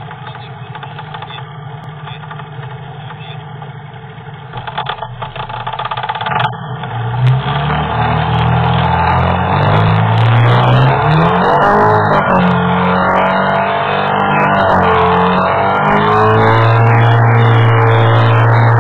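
Speedboat engine running at low revs, then opened up about seven seconds in as the boat gets under way. Its note rises and wavers before settling into a steady, loud run at speed near the end.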